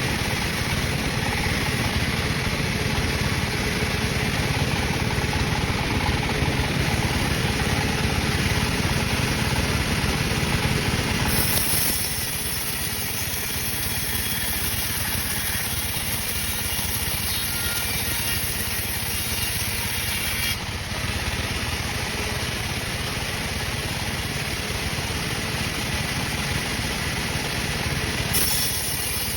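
Sawmill machinery running steadily. It is louder for about the first twelve seconds, then settles to a quieter, even level.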